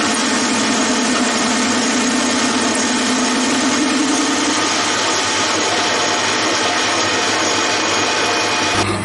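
Metal lathe running, its spindle and chuck spinning a round workpiece: a steady mechanical whir with a tone that rises slightly over the first few seconds. Near the end it gives way to a lower hum.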